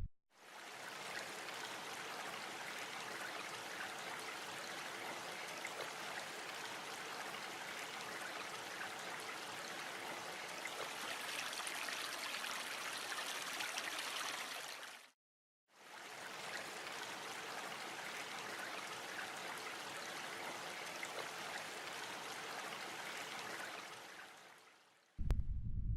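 Running water of a stream, a steady rushing and trickling, in two long stretches split by a short silence about fifteen seconds in.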